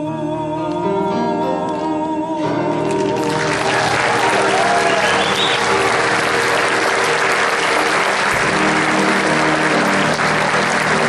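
A live song ends on a held final note with vibrato over the accompaniment. About three seconds in, the audience breaks into sustained applause while the music carries on underneath.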